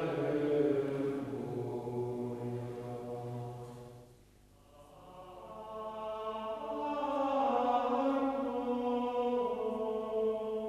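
Monks' voices singing plainchant together: a held phrase dies away about four seconds in, then a new, higher phrase begins.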